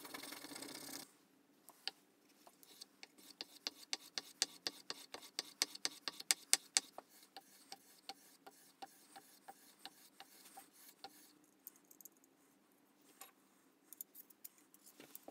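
A block rubbed briskly on a leather strop for about the first second. Then a steel plane iron is stropped on the leather in quick back-and-forth strokes, with a sharp click about three times a second. The strokes fade out, and a few stray clicks follow as the iron is handled.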